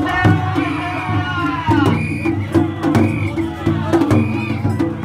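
Japanese festival hayashi music from a dashi float: drums beating a steady repeating rhythm, with sharp clacking strokes and a higher sound recurring about once a second.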